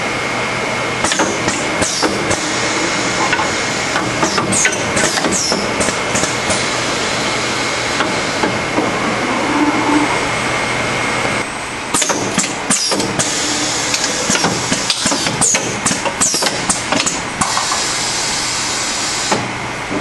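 Automatic servo crimp press station with its part-transfer mechanism running. There is a steady machine hum with a thin high whine that stops about halfway through. Over it come repeated irregular clicks, clacks and knocks of the moving tooling, with short hisses.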